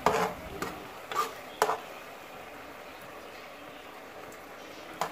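A metal spoon knocking and scraping against a container and pot a few times in the first second and a half as desi ghee is poured into a pot of carrot halwa cooking on the stove, then a steady faint hiss of the pot on the heat.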